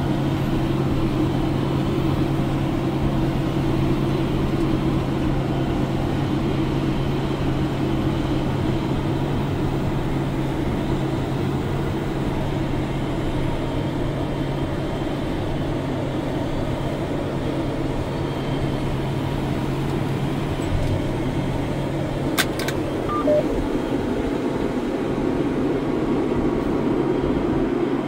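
A vehicle engine running steadily, a constant mechanical drone with a low hum. About three-quarters of the way through the hum tone drops away, next to a brief click.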